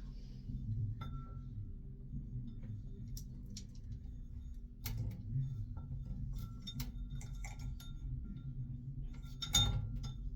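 Small clicks and glassy clinks as a glow-in-the-dark necklace's pendants and little bottle are handled, scattered and irregular, with a louder click near the end. A steady low hum lies beneath.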